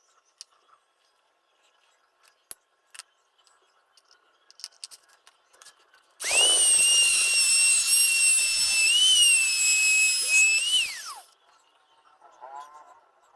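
Small high-speed electric power tool running for about five seconds: it spins up about six seconds in to a steady high whine, wavers once briefly, then falls in pitch as it is switched off. Before it, a few faint clicks of parts being handled.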